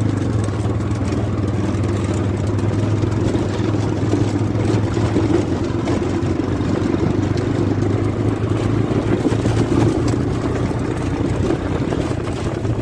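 Engine of a CNG auto-rickshaw running steadily as it drives along a dirt track, a constant low hum with no change in pace.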